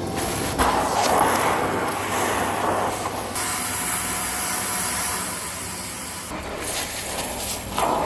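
Shark PowerDetect Pet upright vacuum running, its crevice tool drawing a rushing hiss of air along the carpet edge. The sound is louder for the first three seconds and again near the end, and quieter through the middle.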